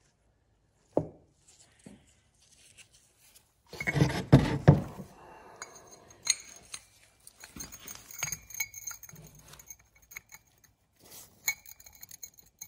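Steel automatic-transmission parts handled on a wooden workbench: a sharp knock about a second in and a louder bout of knocking and rubbing around four seconds in, then light metallic clinks with short ringing. Near the end the clinks come as the 4T65E HD fourth gear clutch hub is rocked on its shaft, loose on a spline worn by high mileage.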